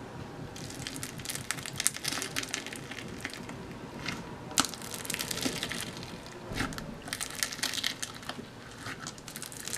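Clear floam slime, packed with foam beads, being squished and kneaded by hand, giving a dense, irregular run of clicks and crackles.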